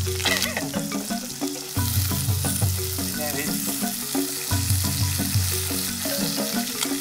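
Genjer (yellow velvetleaf) greens sizzling as they stir-fry in a small wok, turned with wooden chopsticks. Background music with a steady pulsing bass line plays over it.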